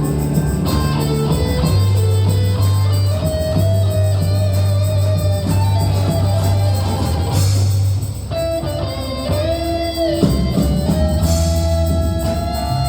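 Live instrumental band of electric and acoustic guitars with bass. A held melody line plays over a steady bass, with a cymbal crash about halfway through and another near the end.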